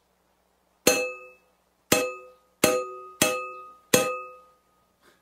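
Five ringing metallic clangs, spaced roughly a second or less apart, each dying away within about half a second: a comic cartoon sound effect of metal being struck.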